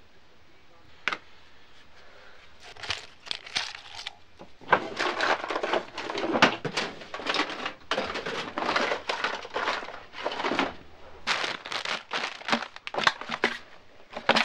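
Hurried rummaging through a desk drawer: items rustling and crinkling in a long run of short bursts, with a single click about a second in.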